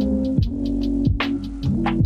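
Electronic background music with a steady beat, held bass notes and sliding pitch drops.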